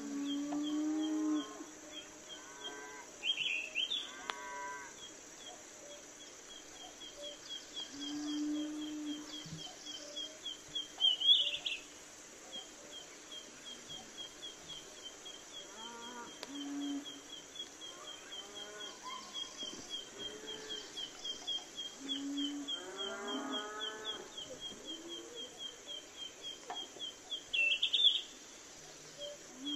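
Cattle lowing several times, each call about a second long, over a small bird chirping steadily about three times a second.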